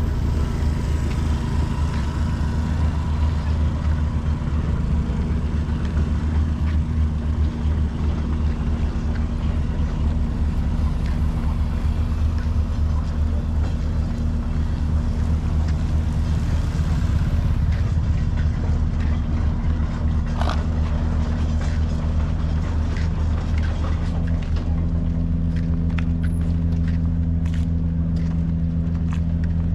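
Steady low drone of an engine or motor running, with a few faint clicks over it.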